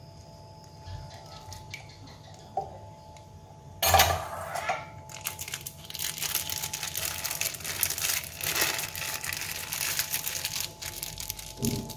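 Thin plastic bag crinkling and crackling as hands pinch and crumple it. It starts with a sudden loud rustle about four seconds in, then keeps up a dense run of small crackles until near the end.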